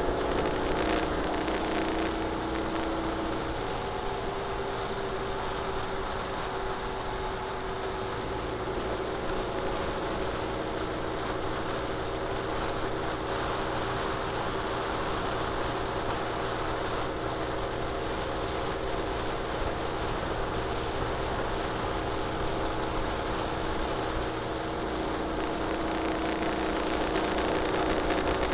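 Ural Retro sidecar motorcycle's flat-twin engine running steadily at cruising speed. Heavy wind and tyre noise from the road lie over it.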